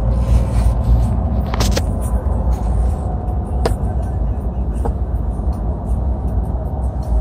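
Steady low road and engine rumble heard inside the cab of a moving vehicle, with a few light clicks.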